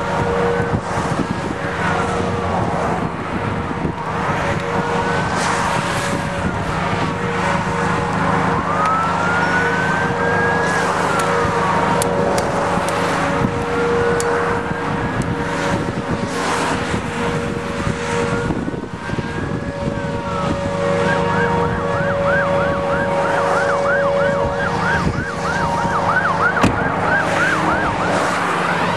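Emergency vehicle siren in a slow rising and falling wail, about one cycle every two and a half seconds, switching to a fast yelp about twenty seconds in, over a steady low hum.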